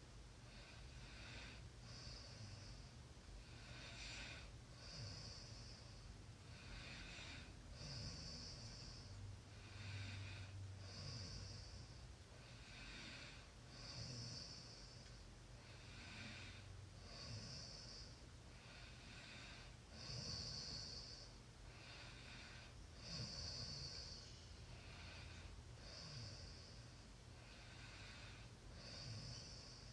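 A person snoring faintly in slow, even breaths, about one every three seconds, each with a hissing rush of air, over a steady low hum.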